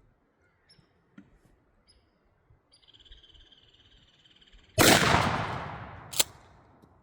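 A Mossberg 500 12-gauge shotgun fires a single 3-inch Federal Grand Slam turkey load about five seconds in, with a sharp report that rings out and fades over about two seconds. A sharp click follows about a second and a half later.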